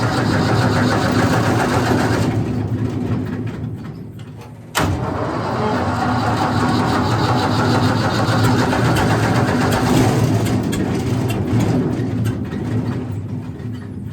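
Wood chipper's gasoline engine, choked and fed carb cleaner, running and then fading away, then starting up again abruptly with a sharp pop about five seconds in and running loudly before dying down near the end. The owner puts the trouble down to fuel not being delivered properly at the carburetor.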